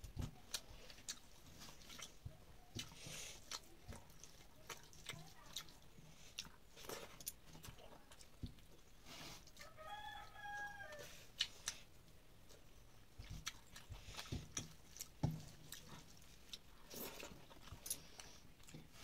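Close-up eating sounds: wet chewing, lip smacks and small clicks as rice and fish curry are eaten by hand from a metal plate. A chicken calls once, briefly, about halfway through.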